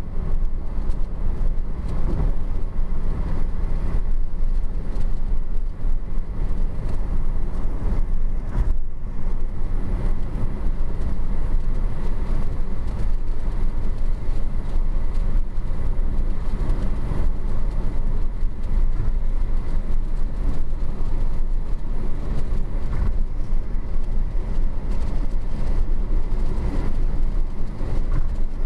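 Steady road noise inside a car cruising at highway speed: a low rumble of tyres and engine that holds even throughout.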